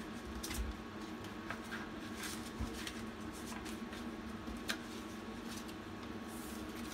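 Clear plastic zip cash envelopes and paper bills handled by hand: soft rustling with about five short sharp clicks spread through, over a faint steady hum.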